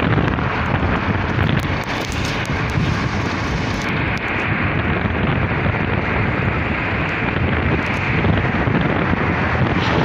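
Steady wind rushing over the microphone together with the low road rumble of a vehicle driving at speed, with no changes through the stretch.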